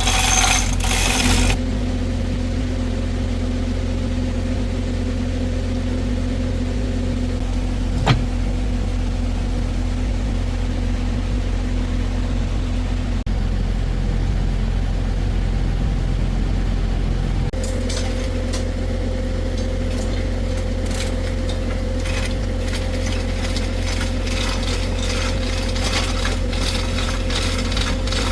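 An engine running steadily at idle, a constant low drone. Over it come scattered metallic clinks of tools, one sharp click about eight seconds in, and a busier run of clinks through the last ten seconds.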